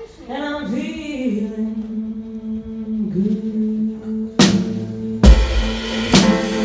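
Live jazz band: a female singer slides into a long low note and holds it over quiet accompaniment. About four and a half seconds in, a sharp drum and cymbal hit lands, and the full band with drum kit, double bass and piano comes in.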